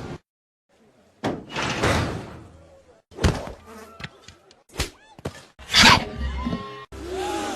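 A string of separate cartoon sound effects cut one after another: a rushing swell, a run of sharp clicks and knocks, a loud hit, then short sliding whistle-like tones.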